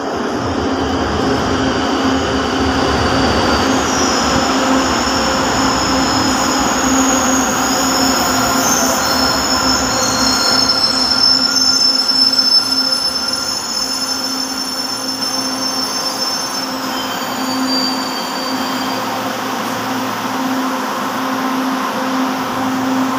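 Electric metro train pulling into the platform and braking to a stop, its wheels and brakes squealing in high tones through the middle of the approach over a steady low hum from the train.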